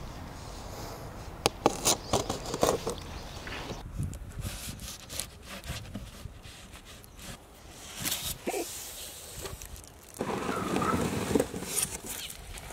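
A knife cutting and scraping through packing tape on a polystyrene box, with a run of sharp clicks and scratches. About ten seconds in comes a louder rustling scrape as a large shark is lifted out of the box.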